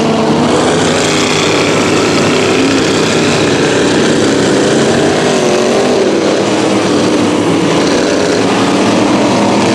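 Big-block mega mud truck engine running at high revs, its pitch wavering up and down as the throttle is worked.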